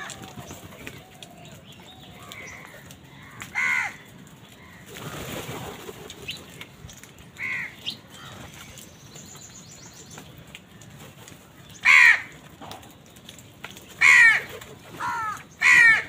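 Crows, house crows among them, cawing: about six harsh single caws at intervals, bunched and loudest toward the end, with a brief rush of wingbeats about five seconds in.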